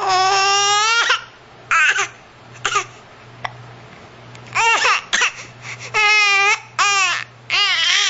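Baby vocalizing in a string of about seven short, high-pitched cries, each rising and falling in pitch. The first is the longest, at about a second.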